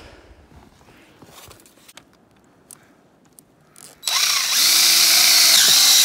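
A few faint handling clicks, then about four seconds in a DeWalt cordless drill starts and runs loud and steady, drilling through the rubber of a snowmobile track, its pitch dipping slightly now and then.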